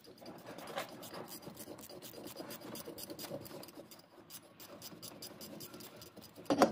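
A wrench being worked on the bare Ford Courier 1.8 engine block: steady scraping and rubbing of metal with a run of quick clicks, then one loud clunk near the end.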